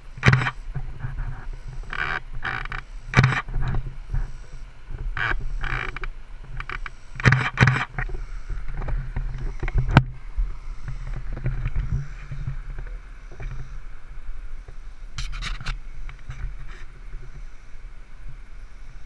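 Diesel engine of a fire tanker truck idling with a steady low hum, with short rustling bursts coming and going over it.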